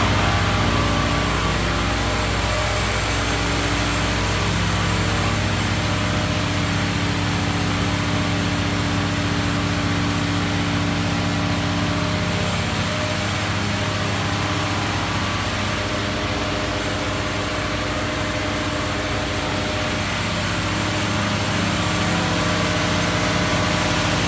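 Vacuum truck running steadily, its engine and vacuum pump pulling through the suction hose laid into a grease trap, with a constant engine tone over a steady rush.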